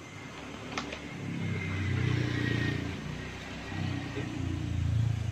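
A motor vehicle's engine running close by, its low rumble swelling twice, with a sharp click about a second in.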